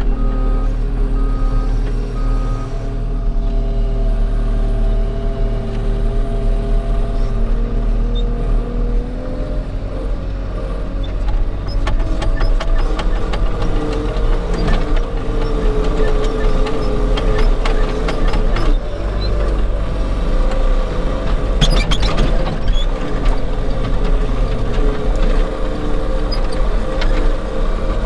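Skid steer loader's engine running under load, heard from inside the cab, with a hydraulic whine rising and shifting as the bucket is raised and tipped to spread out a load. A beeper sounds a few times, evenly spaced, near the start, and there are rattles and knocks in the middle.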